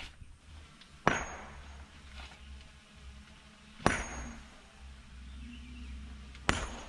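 Three sharp metallic clangs about two and a half seconds apart, each ringing briefly, over the low steady running of an excavator's diesel engine.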